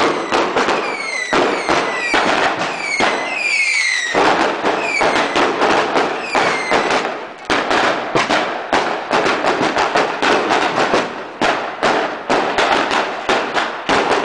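Easter fireworks and firecrackers going off in a rapid, dense barrage of bangs and crackles. Short falling whistles cut through the first half.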